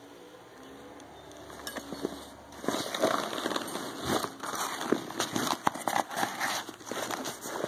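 Nylon backpack fabric rustling and crinkling as it is handled and its pockets are pulled open, with scattered sharp clicks. The rustling is soft for the first couple of seconds, then loud and continuous.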